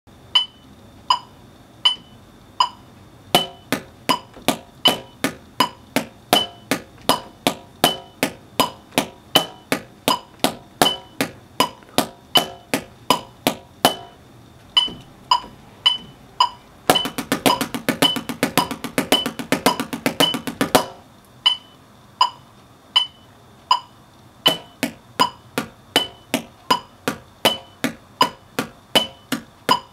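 Drumsticks striking a rubber practice pad, playing rudiments: a steady run of sharp strokes with regular accents. About halfway through they close into a fast roll for a few seconds, then go back to spaced strokes.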